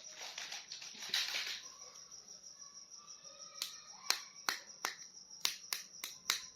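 Toy action figures and their packaging being handled: a short rustle, then a run of sharp, irregular clicks, about a dozen over the last three seconds.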